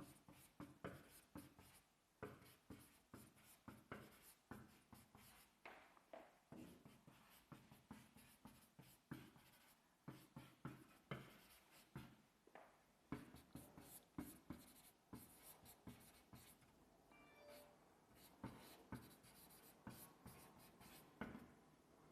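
Faint handwriting: many short, irregular scratching strokes of a lecturer writing by hand, with a brief squeak about seventeen seconds in.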